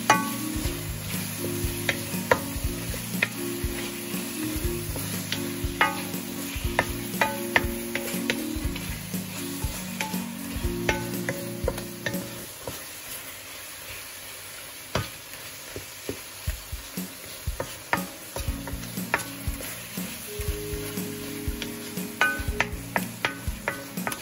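Shrimp and chopped peppers sizzling in a frying pan as a wooden spoon stirs them, the spoon scraping and knocking on the pan in sharp clicks. Background music with a low bass line plays under it, dropping out for several seconds in the middle.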